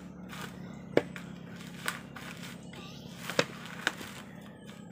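Coconuts knocking against one another about four times as they are handled and dropped onto a heap, over a steady low hum.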